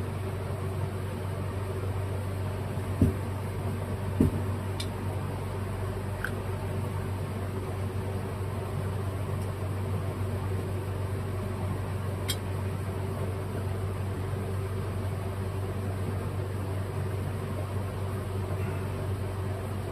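Steady low mechanical hum in a small garage room, with two dull knocks about three and four seconds in and a few faint ticks later, as a small metal plug is handled and worked into a carburetor body.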